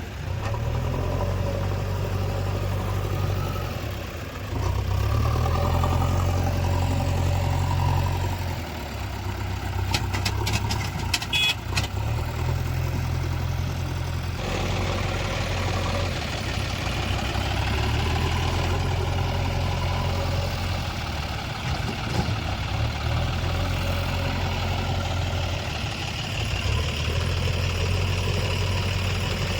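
Diesel engine of a JCB 3DX backhoe loader running as it digs and loads mud, its hum swelling and easing every few seconds with the working cycle. A brief run of sharp clicks and clanks comes about a third of the way in.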